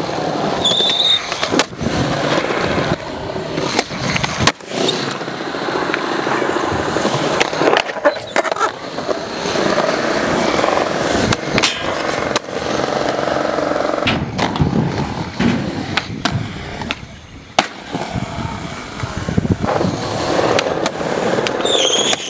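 Skateboard rolling on concrete, the urethane wheels making a steady rumble, broken by sharp clacks of the board being popped and landing. A truck grinds along a metal rail.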